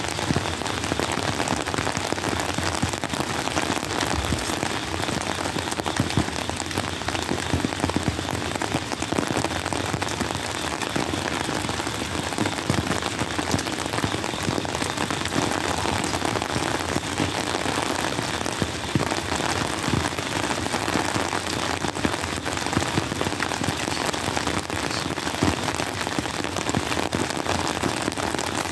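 Steady rain pouring down on a wet road, a dense, even hiss with many scattered sharp drop ticks close by.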